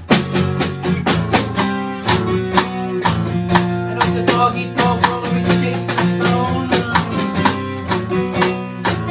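Instrumental music: a strummed acoustic guitar keeping a steady rhythm, with sustained melody notes over it.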